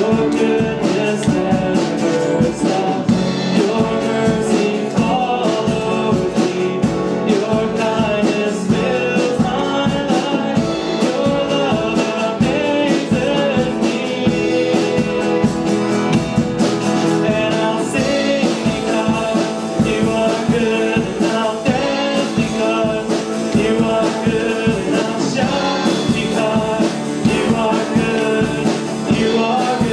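A worship song sung over a band with guitar, at a steady beat.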